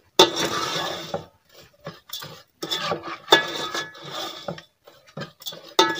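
Metal spoon scraping and stirring sugar in ghee across the bottom of a steel pot, in a few separate strokes with short pauses and a faint metallic ring.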